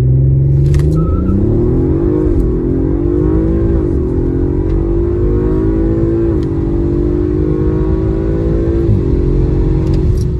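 Audi RS5 Sportback's twin-turbo V6 accelerating hard through the gears. The engine note climbs in pitch and dips back at each of four quick upshifts.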